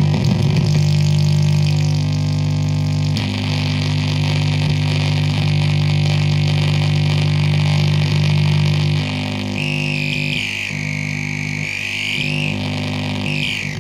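Ciat-lonbarde Old Mr Grassi DIY noise synth played by fingers touching its brass pegs: a steady low drone under a layer of hiss. About ten seconds in, a high whistling tone joins and wobbles up and down.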